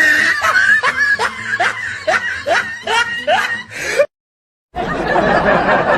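Laughing sound effect: a person snickering in a quick run of short syllables, each one rising in pitch, about two and a half a second. It cuts off suddenly about four seconds in, and after a brief gap a noisier, busier clip of voices begins.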